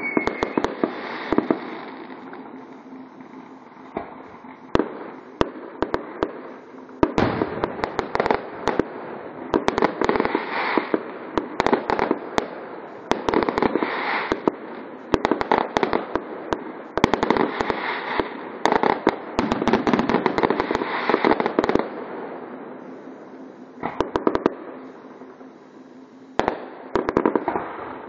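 Fireworks display: aerial shells bursting in rapid volleys of sharp bangs over continuous crackling. The bangs come thickest from about seven to twenty-two seconds in, with thinner spells of scattered bangs before and after.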